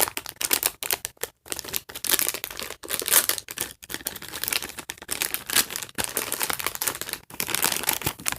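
Plastic blind-bag packaging being torn open and crinkled by hand, a continuous rustling with many short irregular crackles.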